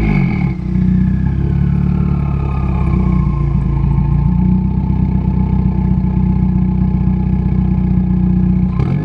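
2015 Subaru WRX's turbocharged 2.0-litre flat-four idling steadily through a straight-piped exhaust (catless J-pipe and single-wall axle-back), heard right at the tailpipe. The revs settle in the first half-second.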